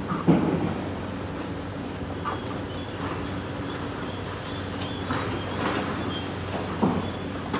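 Heavy diesel demolition machinery running steadily while an excavator tears down a brick building, with crashes and clanks of falling brick and metal debris: a sharp crash just after the start, more crashing about five seconds in, and a thump near the end.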